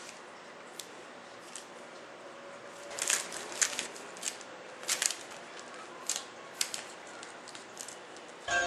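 Thin protective plastic film crinkling and crackling as it is peeled by hand off a 12-inch aluminium subwoofer cone, a series of short irregular crackles starting about three seconds in. Music starts right at the end.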